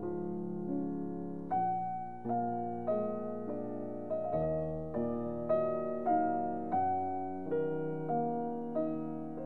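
Background piano music: a slow, gentle piece, a new note or chord struck about every half second and fading away before the next.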